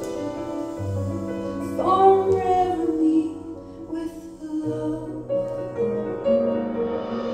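Recorded music played over YG Acoustics Carmel 2 loudspeakers and heard in the room: a singing voice over sustained instrumental notes, with deep bass notes changing every second or two.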